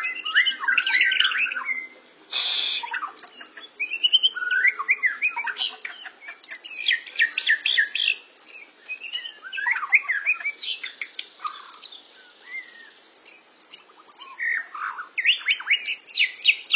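White-rumped shamas (murai batu) singing in their cages: fast, varied runs of whistles, trills and chirps. About two and a half seconds in there is a short, loud hissing burst.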